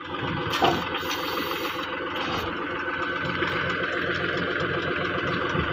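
Engine of a crash-barrier installation machine running steadily, with one sharp click about half a second in.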